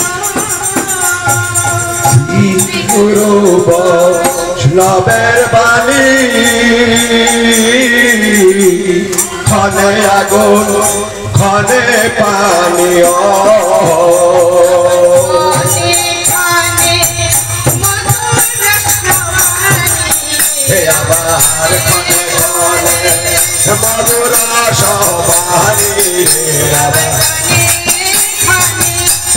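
Devotional kirtan: voices singing a chant-like melody over a two-headed barrel drum (khol/mridanga) played in a steady rhythm, with jingling hand percussion throughout.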